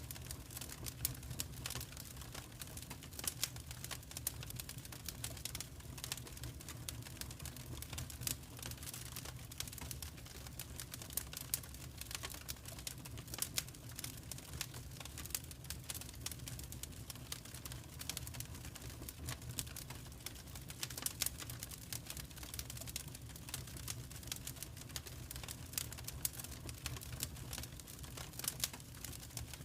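Fireplace fire crackling: irregular sharp snaps and pops over a steady low rumble of the flames.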